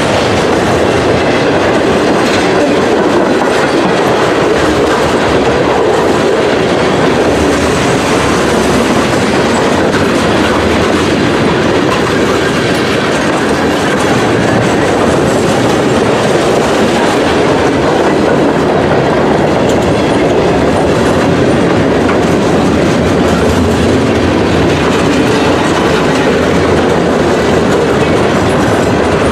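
A Norfolk Southern manifest freight train's cars rolling past close by: a loud, steady rumble and clatter of steel wheels on the rails.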